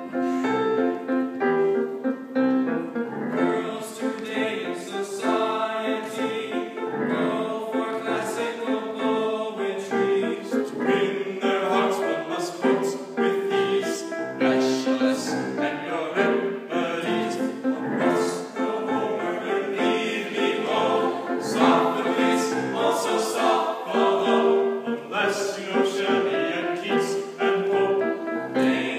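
A small ensemble of teenage boys singing a song together in harmony, several voices at once.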